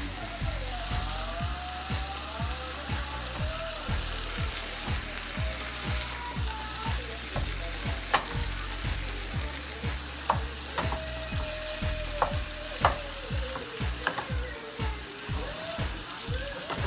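Salmon and butternut squash sizzling in a frying pan while a wooden spatula stirs them. In the second half the spatula knocks sharply against the pan several times.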